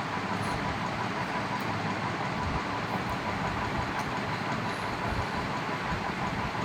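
A steady rumbling, hissing background noise with a few faint clicks.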